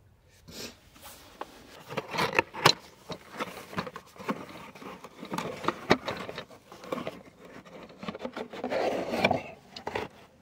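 Gloved hands handling a new distributor cap in its cardboard box: an irregular string of scrapes, rubs and sharp clicks of cardboard and plastic.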